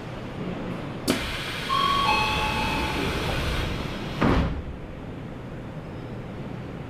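Commuter train's sliding doors closing: a click, then a rush of hissing with two short falling tones, and the doors thud shut about four seconds in.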